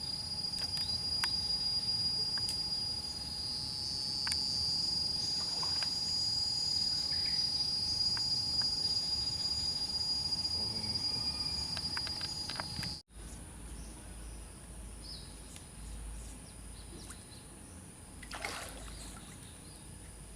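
Steady high-pitched drone of insects, with faint trickling water. About two-thirds of the way in, the sound cuts out abruptly. It resumes quieter, with the insect tone weaker and a low rumble underneath.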